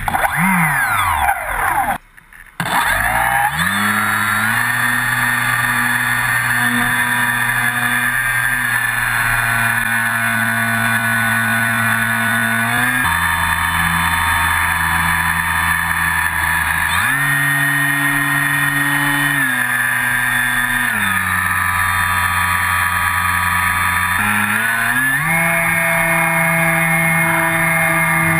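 Electric motor and propeller of a Multiplex FunCub RC plane, heard from a camera on board: a steady whine that glides down at the start, cuts out briefly about two seconds in, then steps up and down in pitch several times as the throttle changes.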